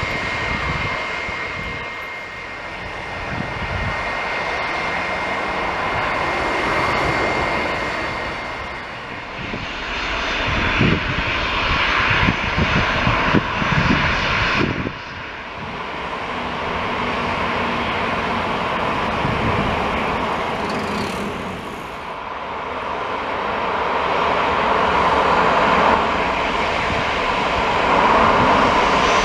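Jet airliner engines running at taxi power: a steady whine over a broad rumble, with a thin high tone for the first several seconds. Near the end it grows louder as the Copa Boeing 737-800 with its CFM56-7B engines moves close by on the runway.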